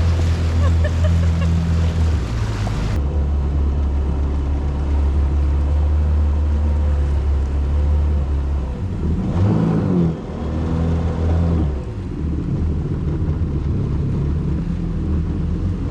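Yamaha WaveRunner personal watercraft engine running steadily under way, with a low drone and a rush of water noise; the engine note wavers briefly about ten seconds in.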